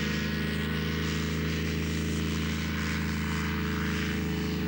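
A microlight trike's engine and pusher propeller running steadily at high power during its takeoff roll across grass, a constant buzzing drone.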